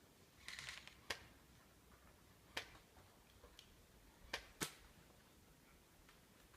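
Airsoft guns firing: a short rattling burst about half a second in, then four sharp single cracks spread over the next few seconds, the last two close together.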